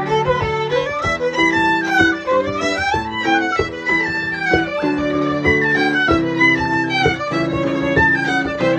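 Irish traditional ensemble playing a fast instrumental tune. Fiddles and a tin whistle carry the running melody over held piano chords, and a bodhrán beats time underneath.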